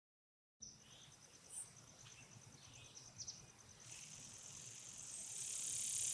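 Quiet woodland ambience: an insect trilling steadily in a fast pulsing high tone, with a few brief bird chirps. From about the middle, a high hiss swells and grows louder.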